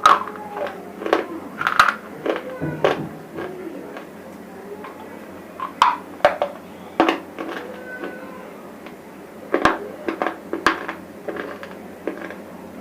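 Dry crunching of small chips of bar material (black, red and white bars that broke into chips), in a dozen or so irregular crisp crunches spaced a fraction of a second to about a second apart.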